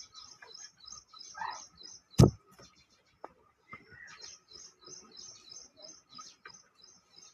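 Aseel chicks peeping in a steady run of short high chirps, several a second, with one sharp knock about two seconds in.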